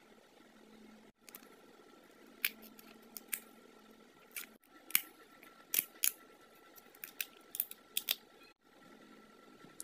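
A plastic candy wrapper being peeled off an eyeball-shaped jelly candy and crumpled, giving a string of sharp crinkles and crackles.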